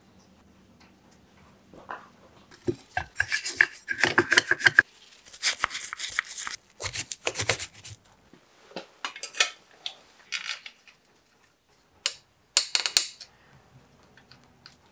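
Small metal bicycle parts and hand tools being handled, clinking, rattling and scraping in irregular bursts with a bright metallic ring, busiest a few seconds in and stopping shortly before the end.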